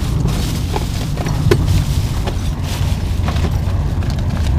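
Steady low rumble with scattered light clicks and taps of hand tools and small parts being rummaged through in a plastic tool crate.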